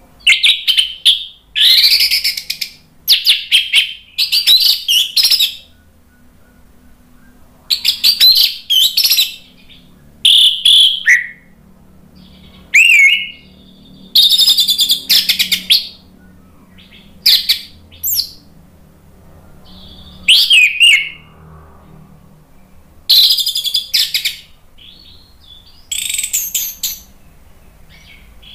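Orange-headed thrush singing a loud, varied song of quick rising and falling notes, in phrases of about a second or two with short pauses between them.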